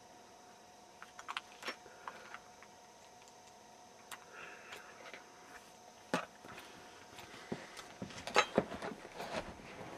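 Light clicks and scrapes of a tension tool and offset diamond pick being worked into a Stanley deadbolt's pin-tumbler keyway, scattered at first and busier near the end.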